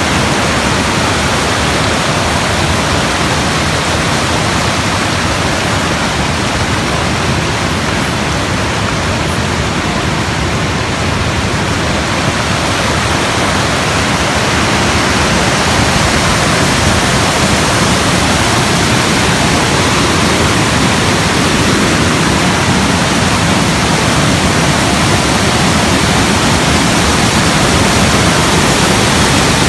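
Water rushing steadily over the Ocqueoc Falls cascades, a loud, even roar of moving water that grows a little louder about halfway through.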